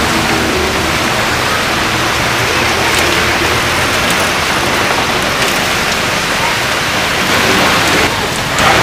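Heavy rain pouring down onto a road: a loud, steady hiss of falling water, with the low hum of passing traffic faintly beneath it.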